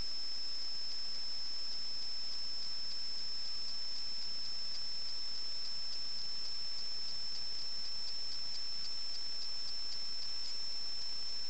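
A steady high-pitched electronic whine over a faint hiss, broken by faint regular ticks about four times a second.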